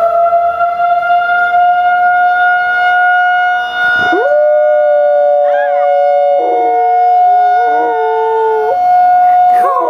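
Outdoor tornado warning siren holding a steady tone, with a dog howling along that rises in sharply about four seconds in and then wavers up and down in pitch.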